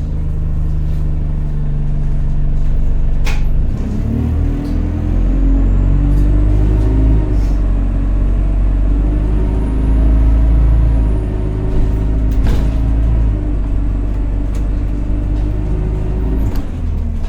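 Engine of an Alexander Dennis Enviro200 single-deck bus, heard from on board: a loud, hoover-like drone with a heavy rumble, its note shifting as the bus pulls away and changes gear. A faint high whine rises and falls midway, and two sharp rattles or knocks cut through, one a few seconds in and one past the middle.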